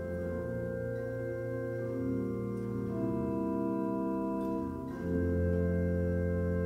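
Organ playing slow, sustained chords as quiet devotional music, the chord changing every second or two, with a fuller, louder chord entering about five seconds in.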